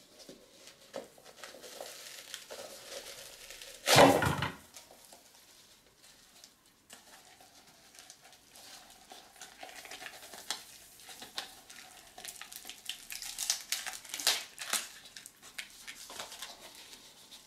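Paper and cardboard of a cut-open aerial firework shell being handled and pulled apart: rustling, crinkling and small clicks, with one loud harsh noise lasting about half a second about four seconds in.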